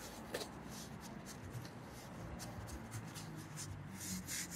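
A hand rubbing heavy-duty upholstery fabric down onto glued foam on a car door panel: a soft, dry brushing swish in quick repeated strokes. The rubbing presses the fabric into the adhesive so it bonds without wrinkles or air bubbles.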